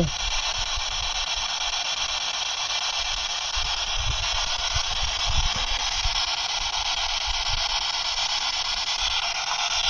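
Steady hiss of radio static from a small handheld electronic device.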